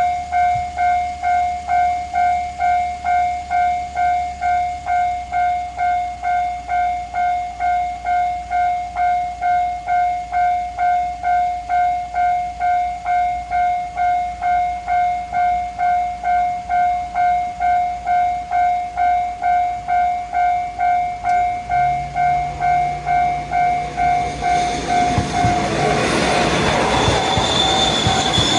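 Japanese railway level-crossing warning bell ringing at about two strikes a second. Near the end a train arrives and passes with a loud rushing and wheel noise while the bell keeps ringing.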